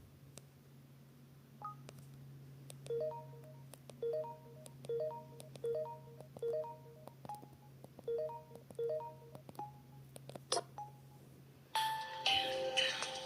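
Samsung GT-B2100 mobile phone playing ringtones through its small speaker: a quiet ringtone of short repeated beeping notes, about two a second, then a louder, fuller ringtone melody starts near the end.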